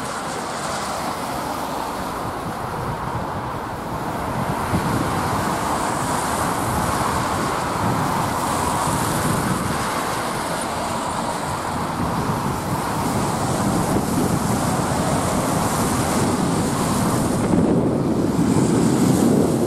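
Road traffic on a wet road: cars passing with the steady noise of tyres on wet tarmac, growing louder near the end as a coach passes close by.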